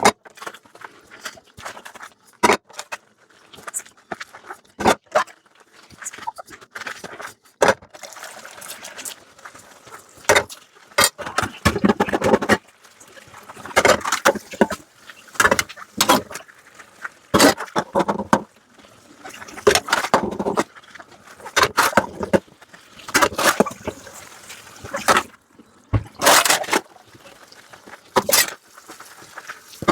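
Dishes being washed by hand at a sink: repeated clinks and knocks of dishes and utensils, with short bursts of running water and scrubbing, busier from about a third of the way in.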